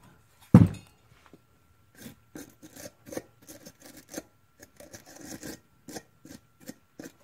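A thump about half a second in, then a run of short metal-on-metal scrapes, two or three a second, as a small hand tool picks and scrapes at an old engine part around a broken-off bolt.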